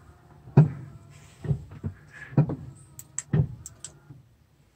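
Mk1 Scirocco's windshield wiper running, the blade sweeping across the wet glass over a steady motor hum, with a thump at each turn about once a second, four in all. It stops a little after four seconds in as the wiper parks.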